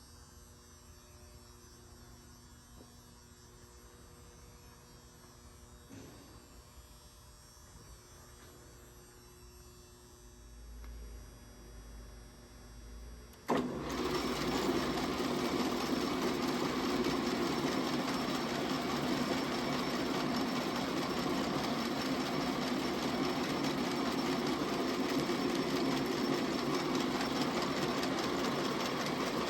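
ENCO 12" x 24" metal lathe: a faint steady hum, then about halfway through the lathe starts suddenly and runs steadily and loudly.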